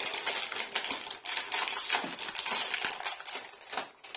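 Plastic cookie packet crinkling and crackling as it is pulled at by hand in an effort to tear it open without scissors.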